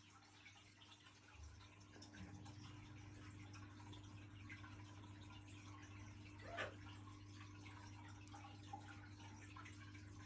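Quiet, faint wet clicks and drips from a blue-and-gold macaw's beak working a grape, over a steady low electrical hum. One brief louder sound comes about two-thirds of the way in.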